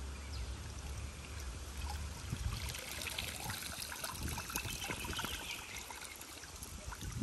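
Water streaming and splashing off a cast net as it is hauled up out of shallow river water, the splashing thickening about two and a half seconds in.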